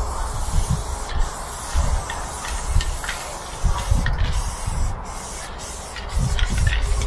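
Aerosol spray paint can hissing as paint is sprayed onto a freight car, with a few brief breaks in the spray, over an uneven low rumble.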